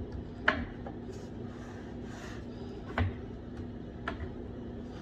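Wooden pieces being handled and knocked against the table saw's top, with about three sharp knocks, over a faint steady hum.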